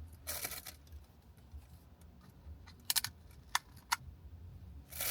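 A short rustle, then four or five light, sharp clicks spaced unevenly, like a plastic dessert cup and its lid or spoon being handled.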